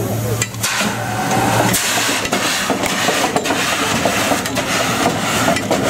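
The steam engine of a Cugnot fardier reproduction hissing and puffing irregularly as it vents steam and gets under way. A low hum fades out about two seconds in.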